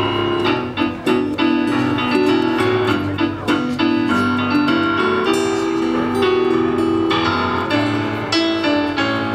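Electric keyboard playing piano chords and melody with acoustic guitar accompaniment, an instrumental passage of a live song.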